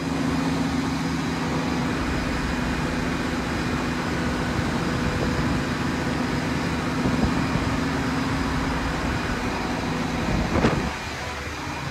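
Steady rushing noise of hurricane wind and storm-surge floodwater, with a steady low hum underneath. A brief sharp knock or gust comes near the end.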